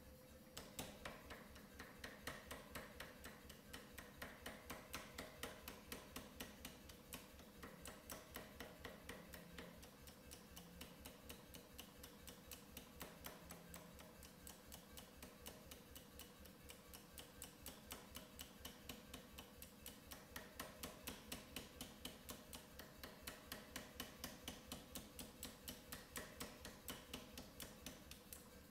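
Pneumatic power hammer pounding hot steel through a hand-held top tool, a steady run of about three blows a second.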